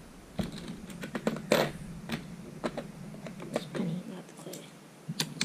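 Irregular small plastic clicks and taps of speedcube parts being handled and set down, the loudest about a second and a half in.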